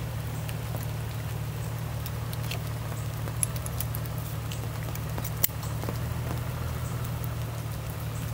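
Light clicks and small metallic rattles of revolvers being handled and reloaded at a shooting bench, with two sharper clicks about a third and two-thirds of the way through, over a steady low hum.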